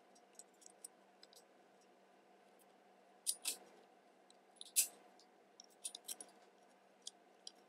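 Faint small clicks and scrapes of airsoft pistol parts being handled as the blowback housing unit is worked slowly into the pistol slide, with a few sharper clicks about three and a half and five seconds in.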